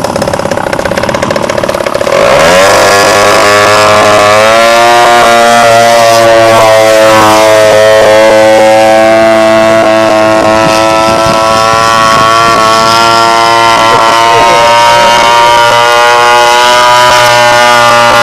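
RC Extra model aeroplane's motor and propeller throttling up about two seconds in, the pitch climbing for a couple of seconds, then running at high throttle in a steady, high-pitched drone that wavers slightly.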